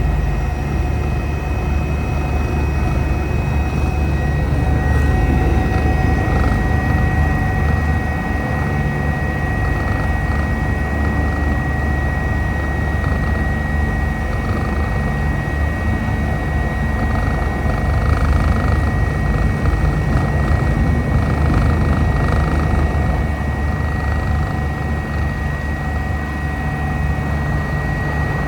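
Eurocopter EC145 twin-turbine helicopter in flight: a steady rotor and engine thrum with a constant high turbine whine over it.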